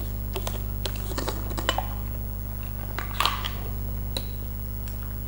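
Scattered light clicks and clinks of cutlery and dishes as food is served at the table, with a slightly stronger clink a little past halfway. Under it runs a steady low hum.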